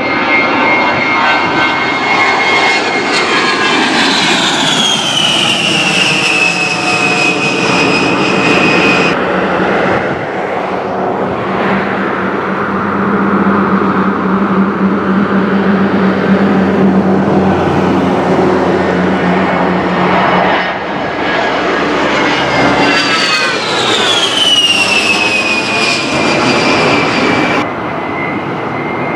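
A-10 Warthog's twin TF34 turbofan engines running loud as the jet passes low, a high whine falling in pitch as it goes by. This happens twice, and the sound cuts off abruptly in a few places.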